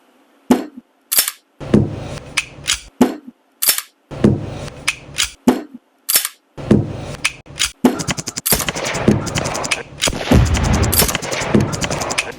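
Gunshots: sharp single shots spaced irregularly, a fraction of a second to about a second apart. From about eight seconds in they give way to rapid, overlapping fire.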